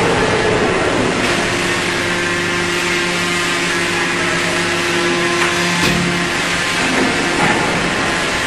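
Four-column hydraulic deep drawing press running, its hydraulic pump unit giving a steady loud hum as the ram is lowered under manual control onto the sheet metal. A steady whine sits over the hum from about a second in until about six seconds, when a single sharp knock is heard.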